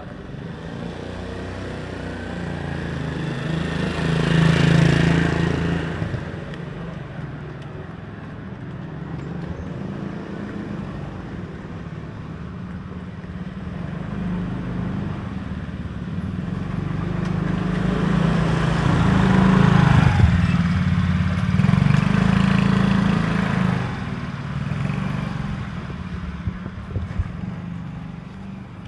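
Motor vehicle engines with a steady low hum throughout. One vehicle swells and fades past about five seconds in, and a longer, louder pass builds and fades between about 17 and 24 seconds in.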